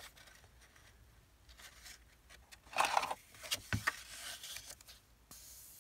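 Soft rustling and handling of paper and fabric scraps on a cutting mat, with a short cluster of louder rustles about three seconds in.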